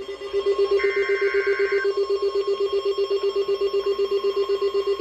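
Emergency Alert System tones for a tornado warning: a steady tone over a rapidly pulsing lower tone, with a short buzzy data burst about a second in. They announce a second tornado warning in force at the same time, a "doubleheader".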